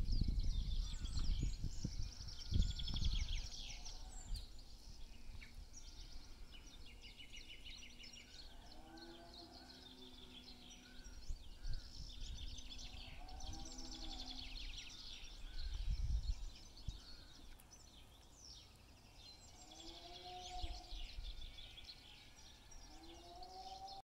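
Songbirds singing in a continuous chorus of trills and chirps, with short arched livestock calls, cows lowing, a few times, about every four to six seconds. Low rumbles near the start and about 16 seconds in.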